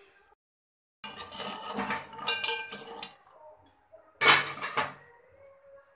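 Metal cookware clattering and clinking, starting about a second in, with one loud metallic clank just after four seconds in.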